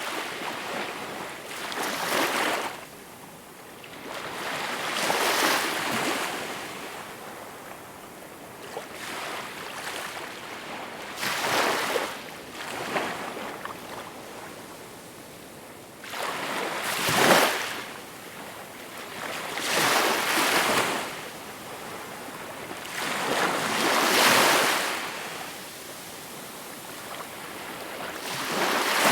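Small, calm waves washing onto a shore. Each wave is a hissing surge that swells and dies away, arriving about every three to five seconds.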